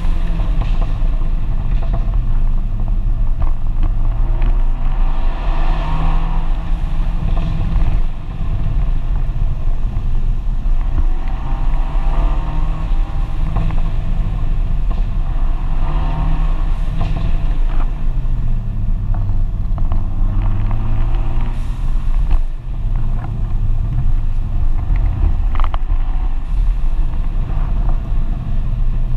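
FIAT 124 Spider Abarth's 1.4-litre turbocharged four-cylinder engine, its pitch rising and falling as it pulls through the revs and eases off. Two brief drops in level, about a quarter and three quarters of the way through, fit a lift or a gear change. Wind buffets the microphone in the open cockpit.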